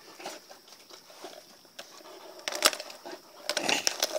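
A large Volga Wolfhound (wolfdog cross) chewing a whole frozen, unplucked chicken. Scattered small crackles are followed by one sharp crunch about two and a half seconds in and a quick run of crunches near the end.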